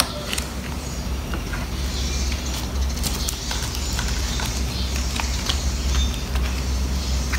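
Clear plastic sleeve pages of a ring binder rustling and crinkling with scattered small clicks as they are turned and handled, over a steady low rumble.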